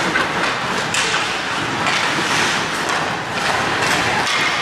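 Ice hockey play: skate blades scraping and hissing on the ice, with a few knocks of sticks and puck.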